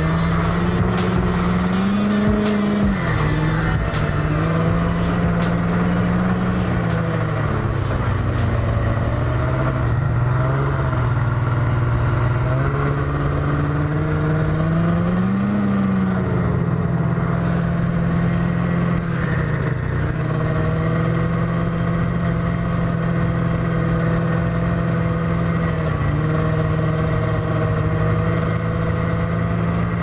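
Yamaha snowmobile engine running under way, heard from the rider's seat; its note rises and falls with the throttle a few times in the first half, then holds steady.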